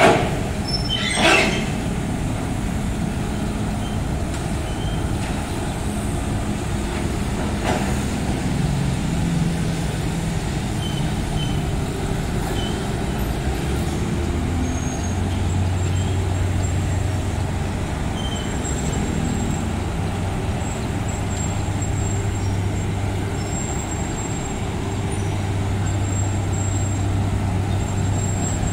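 Heavy road-repair machinery engines running steadily, with two sharp knocks near the start; a steady low engine drone sets in about halfway through.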